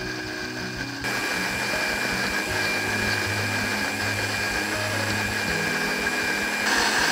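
Electric countertop blender running steadily, grinding a thick yellow curry paste of herbs and spices: a motor whine over a whirring hiss. It gets louder about a second in, and its tone changes near the end.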